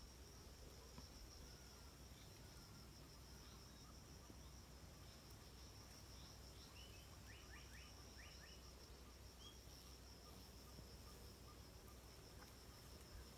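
Faint, steady insect trill: one high, rapidly pulsing note that never stops, with a short run of quick high chirps about seven seconds in.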